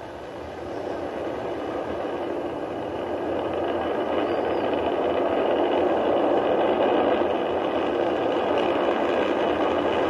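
Rocket engine noise from a Delta IV Heavy's three RS-68A engines just after liftoff, heard from a distance. It is a steady, noisy rumble that grows steadily louder as the rocket climbs.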